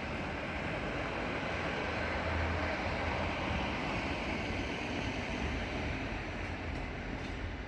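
Road traffic going past: a steady rush of tyre and engine noise with a low rumble, swelling to its loudest about two or three seconds in and easing slightly near the end.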